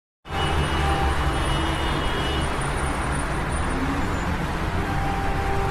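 Steady city traffic noise with a low vehicle rumble, cutting in suddenly just after the start.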